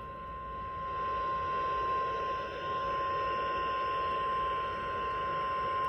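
NOAA Weather Radio 1050 Hz warning alarm tone: a single steady tone, received over a weather radio with a hiss of reception noise beneath it.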